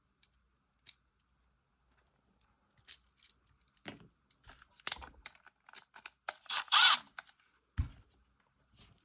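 Handling noise of a red traveler wire being bent and hooked around a screw terminal on a 3-way switch: scattered small clicks and scrapes, busiest with a loud scrape about seven seconds in, then a dull knock near the end.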